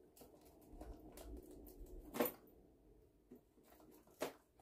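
Faint rustling and scratching of fingers picking at the seal on a small cardboard box, with a sharper click about two seconds in and another near the end.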